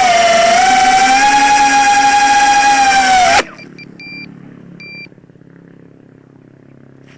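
High-pitched whine of a 4-inch FPV quadcopter's four brushless motors (1408 size) and propellers, steady with slight dips in pitch, cutting off abruptly about three and a half seconds in as the motors stop. A few short electronic beeps follow over a faint low hum.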